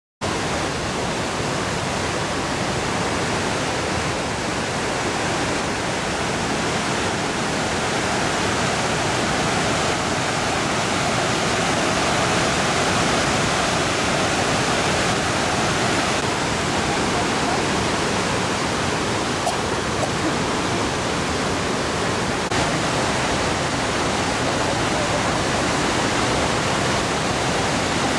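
Rushing water: a steady, even noise that starts suddenly and swells slightly midway.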